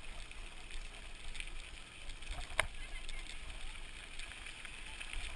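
Mountain bike rolling along a dirt trail, with wind buffeting the microphone, tyre and gravel noise and small rattles, and one sharp click about two and a half seconds in.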